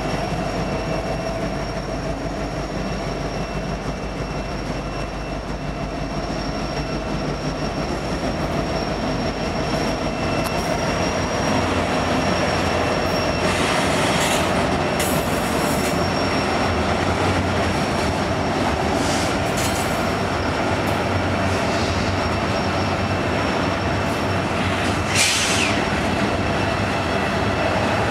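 Union Pacific diesel locomotives rumbling past, followed by double-stack intermodal container well cars rolling by with steady wheel noise on the rails. From about halfway through, the wheels give short high squeals, with one louder squeal near the end.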